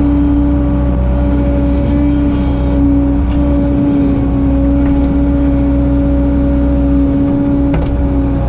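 Bobcat 743 skid steer's diesel engine running steadily at working revs, with a steady hum-like whine over the engine's rumble.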